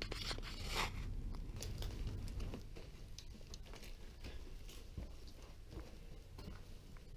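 Footsteps crunching and scuffing on a debris-strewn floor, with scattered small clicks, and a louder rustle in the first second.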